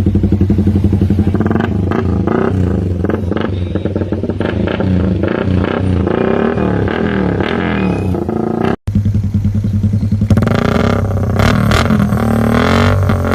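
Suzuki Raider 150 single-cylinder four-stroke motorcycle running through an aftermarket exhaust, idling and then revved repeatedly with the throttle blipped up and down. The sound cuts out for an instant about nine seconds in, and louder revving follows.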